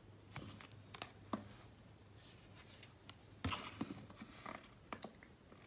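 Oracle cards being handled and swapped: scattered faint clicks and a short papery rustle about three and a half seconds in as the next card is brought forward.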